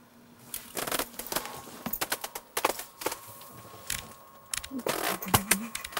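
Irregular clicking, crackling and rustling of hands, clothing and tackle as fishing line is pulled up by hand through an ice hole after a bite.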